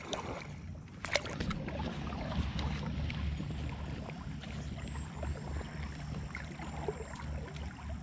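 River water moving and splashing, with a low rumble of wind on the microphone and a sharp click about a second in.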